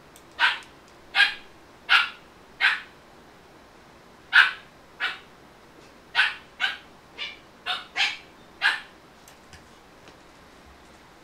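A dog barking: about twelve short, sharp barks in three runs, four, then two, then six.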